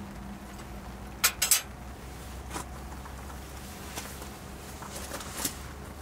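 Three quick sharp clicks a little over a second in, the loudest sounds here, then scattered footsteps crunching on pebble gravel as someone walks off.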